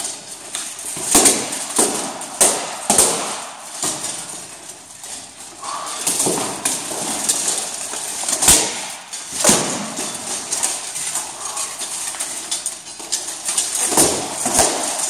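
Armoured sword sparring: steel swords striking armour and armour plates clanking, in an irregular string of sharp strikes and heavier thuds as the fighters trade blows and close to grapple.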